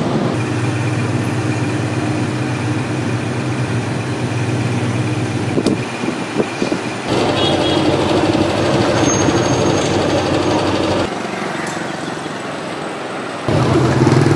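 A vehicle engine running steadily, its hum changing abruptly several times as separate clips are cut together.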